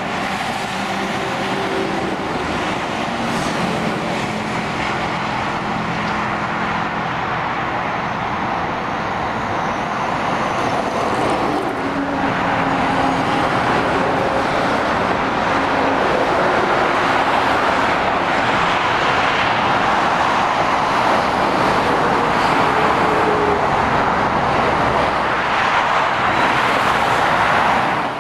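Dual-carriageway road traffic: heavy lorries and cars passing, a continuous tyre roar with engine notes that come and go and shift in pitch as vehicles go by. It gets louder about twelve seconds in.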